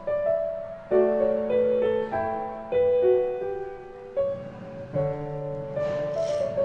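Background piano music: a slow melody of single notes, each struck and fading, over a low held bass note. A soft hiss swells briefly near the end.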